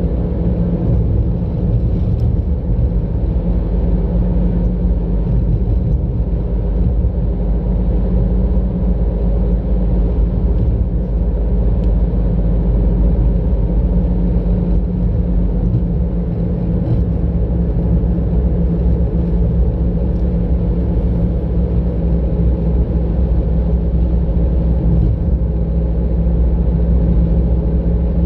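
A car driving at a steady speed, heard from inside the cabin: a steady low rumble of engine and road noise with a constant hum.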